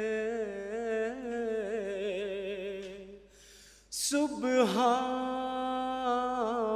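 A man's unaccompanied voice chanting an Urdu nazm, a hymn of praise, in long, wavering held notes. He breaks off for about a second near the middle and comes back in with a short hiss.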